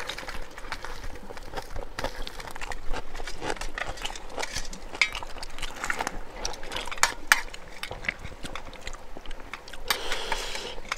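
Metal spoons clinking and scraping against steel bowls and plates as people eat, with scattered light clicks and taps.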